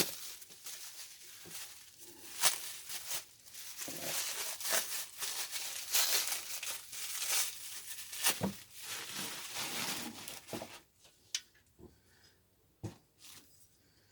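Plastic packing material being handled and unwrapped: crinkling and tearing with sharp crackles, stopping about eleven seconds in, followed by a few light knocks.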